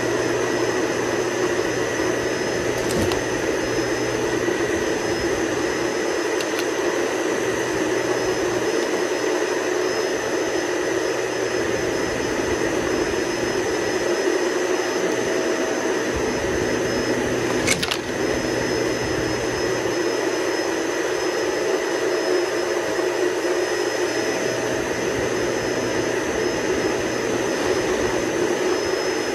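Upright bagless vacuum cleaner running steadily while being pushed over carpet: an even motor rush with a constant high whine. There is one sharp click a little past halfway.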